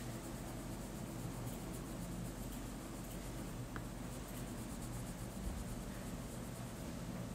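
Colored pencil scribbling on paper in quick back-and-forth shading strokes, over a steady low hum.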